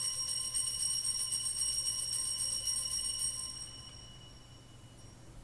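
Altar bells (Sanctus bells) shaken in a rapid, shimmering jingle that fades out about four seconds in, with one faint last tinkle near the end. They are rung to mark the elevation of the chalice at the consecration.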